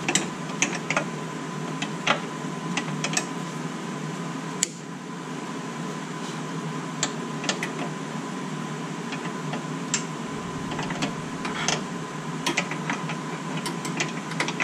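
Light metallic clicks and taps of a 13 mm wrench working a front brake-line fitting loose. They come irregularly, over a steady background hum.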